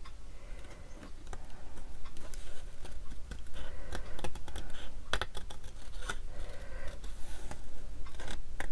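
Scissors fussy-cutting paper: a run of quick, irregular snips.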